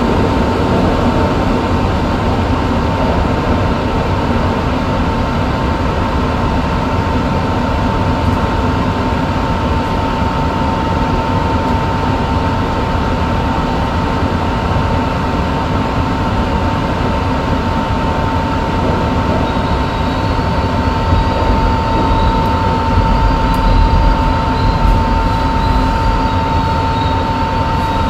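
New York City Subway train heard from inside the lead car at the front window: a steady hum with one constant whine. It pulls away into the tunnel, its low rumble growing stronger near the end.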